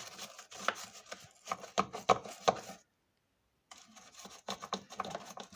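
Scrub brush working over the inside of a washing-machine drum in quick, scratchy strokes, loosening built-up soap residue and grime, broken by a moment of dead silence near the middle.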